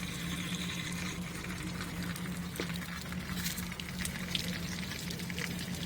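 Water pouring into an old stationary-engine radiator and running out through a leak in the core, with small splashes and drips. A steady low hum sounds underneath.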